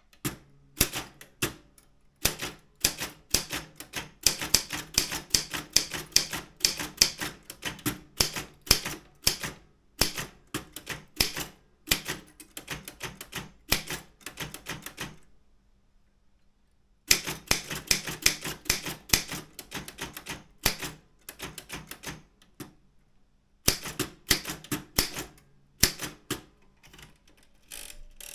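Daro Optima M16 manual typewriter being typed on. Its type bars strike in quick, uneven runs of clacks, with a pause of about two seconds past the middle and a shorter one later.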